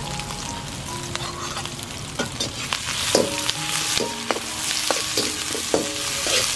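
Onion, bell peppers and green chillies sizzling as they are stir-fried in a black iron wok, a metal spatula scraping and knocking against the pan, more often in the second half.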